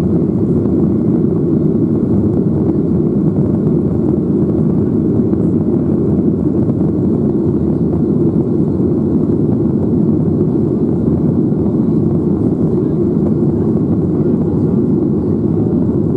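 Steady engine and airflow roar heard inside the cabin of a Boeing 737-800 with CFM56-7B turbofans, climbing after takeoff.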